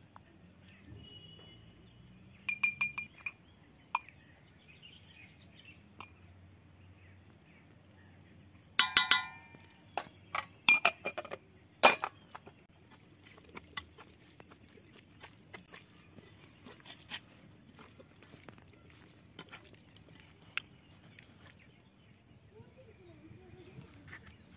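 Scattered metallic clinks and taps on a metal plate of raw chicken as spices are added, the loudest a short run of sharp clinks about nine to twelve seconds in, one of them ringing briefly.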